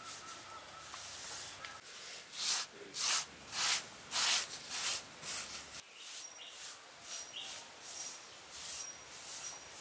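Bare hands rubbing and smoothing a wet cement pond lining, a run of rasping strokes about every half second that are loudest in the middle. Small high bird chirps come in during the second half.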